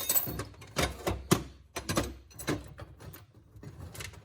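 Metal chain clinking and clanking in a run of separate knocks as it is handled and moved out of a toolbox, dying down near the end.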